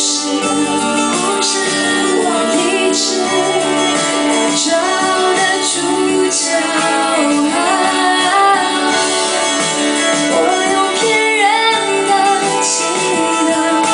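A woman singing a song into a handheld microphone over instrumental backing music, her held notes wavering with vibrato.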